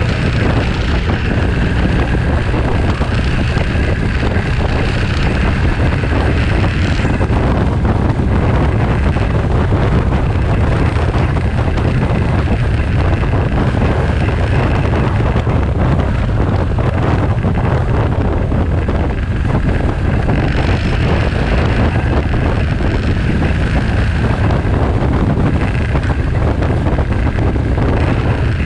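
Wind rushing over the microphone of a camera on a moving motorcycle, a loud steady buffeting rumble, with the motorcycle's engine running beneath it.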